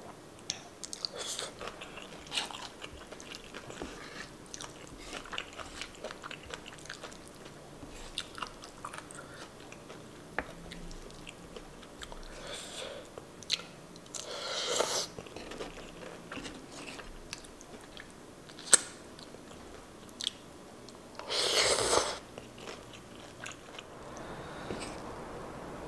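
Eating sounds: chewing of creamy kimchi bacon angel-hair pasta with small clicks of a wooden fork, and two louder, longer slurps of noodles about 15 and 22 seconds in. There is one sharp click a few seconds before the second slurp.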